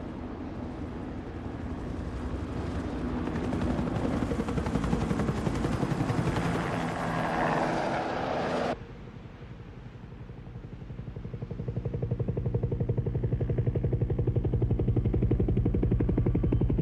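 Helicopter rotor chopping: fast, even thudding pulses under a rising rush of noise that cuts off abruptly about halfway. A lower rotor thudding then swells up again toward the end.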